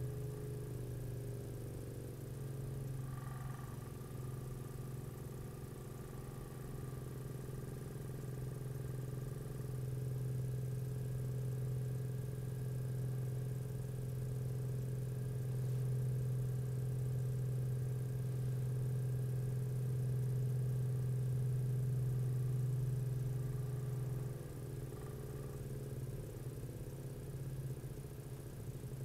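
Mechanical wave driver humming steadily as it shakes a stretched string at the frequency set on a frequency generator. The hum grows louder through the middle, while the string swings in a large standing wave at resonance, and falls back about 24 seconds in.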